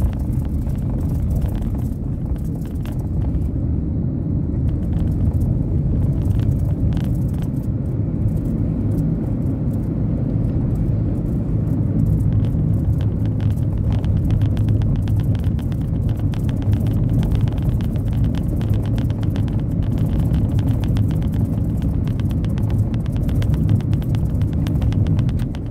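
Steady low rumble of a moving car's engine and tyres on the road, heard from inside the cabin, with a faint fast ticking from about halfway through.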